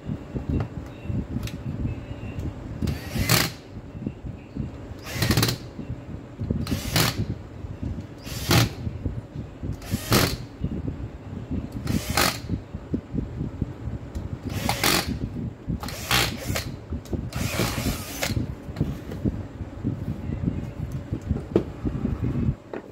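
A cordless drill-driver running in about ten short bursts, under a second each, backing out the screws of a cordless drill's plastic housing, with clattering and knocking of the tool and parts being handled between the bursts.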